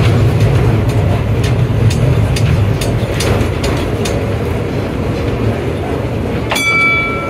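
Heritage tram running on its rails, heard from the driver's cab: a steady rumble of wheels and motor with light clicks from the track, easing off after about four seconds. Near the end the tram's bell is struck once and rings on.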